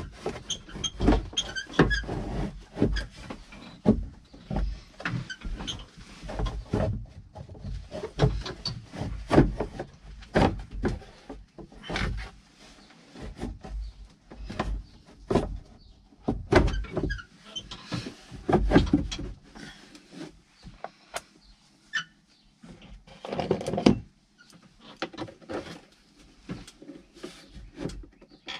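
Moulded plastic cover being worked back onto a backhoe's pilot control pedestal: irregular knocks, clicks and scraping of hard plastic, in bunches with short pauses.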